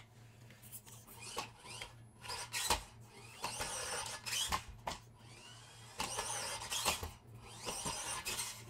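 A 1/24-scale FMS FCX24 RC crawler's small electric motor and drivetrain whining in several short throttle bursts as it climbs a steep wooden ramp, its tires spinning and scrabbling on the board for grip. Sharp knocks of the wheels and chassis against the wood come in between.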